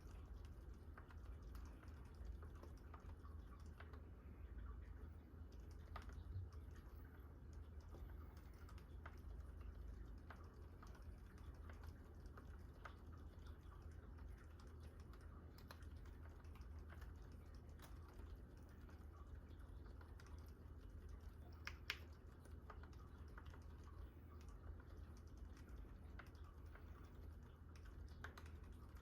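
Faint, continuous typing on a GMMK Pro mechanical keyboard with a brass plate and fully lubed Gazzew Boba U4 silent tactile switches: soft, muted keystrokes in an irregular stream, with one sharper click about 22 seconds in.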